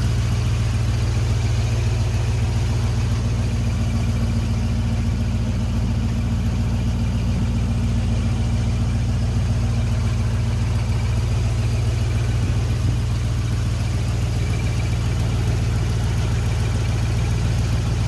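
1975 Ford F750 fire truck's 391 V8 engine idling steadily, heard up close under the open hood.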